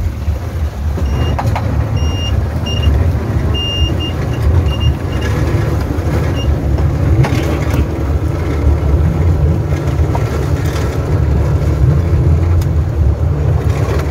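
Boat engine running steadily underway, a low drone with wind and water rushing past. A run of short, high beeps sounds in the first few seconds.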